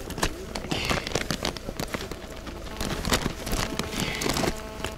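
Wet gill net being handled over the side of a boat: irregular splashes and drips of water with small knocks and rustles.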